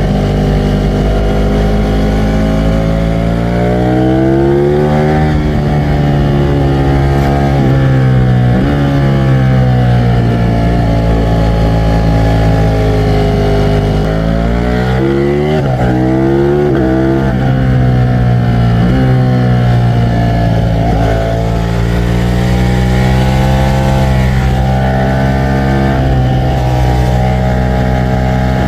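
Ducati Streetfighter V4 S's V4 engine running hard: its pitch climbs and falls again and again, with several sudden drops in pitch.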